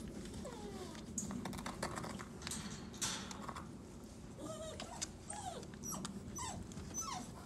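Puppies whining in several short whimpers that rise and fall, mostly in the second half, over scuffling and clicking of paws and claws against the tub as they scramble in.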